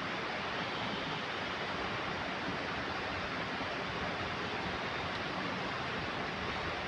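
Steady rushing of flowing river water, an even hiss without breaks.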